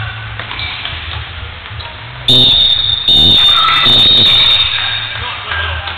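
Game-clock buzzer sounding twice in an indoor futsal hall: a short blast followed at once by a longer one, loud and high-pitched.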